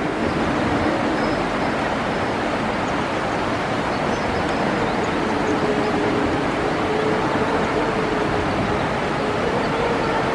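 Freight cars rolling across a steel girder railway bridge: a steady rumble of wheels on rail, with a faint steady whine coming in about halfway.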